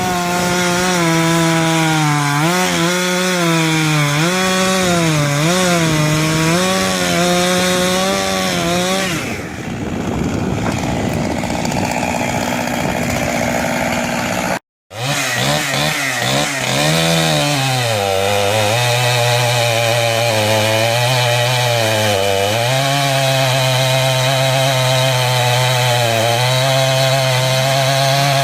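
Two-stroke chainsaw running at high revs in a cut, its pitch sagging and recovering again and again as the chain loads in the wood. About halfway through the sound drops out for a moment, then a saw runs on at a slightly lower, steadier pitch.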